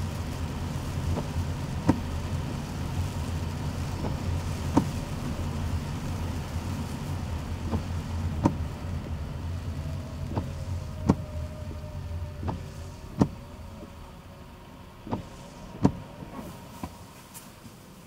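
Rain on a car, heard from inside the cabin: a low road and engine rumble that dies down as the car slows to a stop, with sharp, irregular ticks of raindrops striking the roof and windshield.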